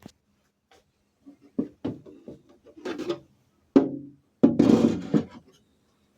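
A series of irregular knocks and clunks with a short scraping rustle, the loudest a sharp knock near the middle followed by a scrape-like rush about a second long, over a faint steady low hum.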